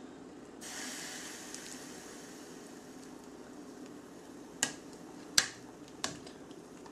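Soup being served from the pot into a bowl: a serving utensil clinks sharply against the dishes three times in the second half, the loudest about five seconds in. Before that, a soft hiss sets in just under a second in and fades away.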